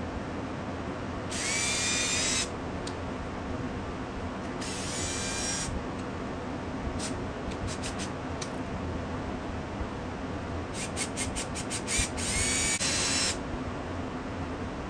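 Cordless drill boring a pilot hole through the dashboard panel, run in short bursts: two runs of about a second each, a few quick trigger blips, then a rapid string of short pulses and a final longer run. The motor whine climbs in pitch as each run spins up.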